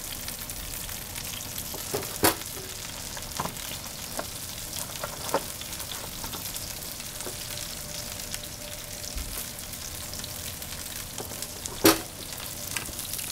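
Halved cremini mushrooms searing in oil in a pan over high heat: a steady crackling sizzle, with two louder knocks, about two seconds in and near the end.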